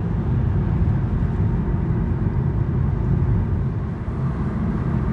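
Steady low road and engine noise of a moving car, heard from inside its cabin.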